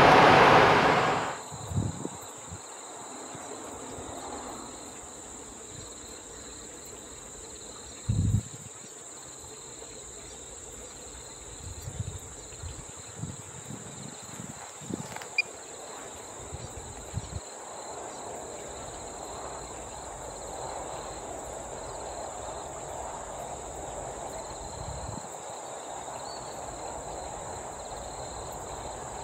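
A KiwiRail EF electric locomotive running at a station platform, loud for about the first second and a half before it cuts off abruptly. It gives way to a quiet rural background of steady high insect chirring, with a few short low thumps.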